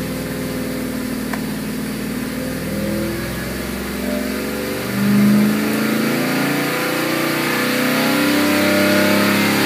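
455 Oldsmobile big-block V8 with FAST fuel injection pulling under load on a dyno during a power sweep. Its pitch climbs steadily as the revs rise from about 2,500 to nearly 3,800 rpm, and it gets louder in the second half.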